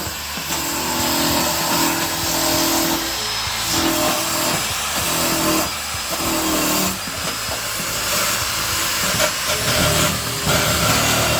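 Electric welding arc tack-welding a sheet-steel floor pan into a car body: a steady crackling hiss with a low hum that comes and goes.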